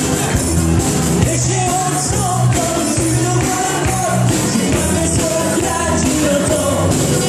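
Live band playing a song with singing over synthesizer keyboard, electric guitar and djembe hand drums, to a steady beat.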